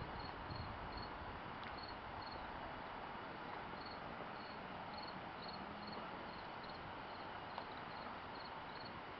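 Insect chirping: short, high chirps repeating about two to three times a second over a steady low hiss, dropping away for a couple of seconds in the middle.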